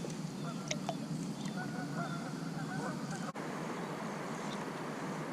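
Steady low rush of outdoor background noise with several short, thin bird calls during the first three seconds. The sound breaks off abruptly a little over three seconds in, and after that only the steady rush remains.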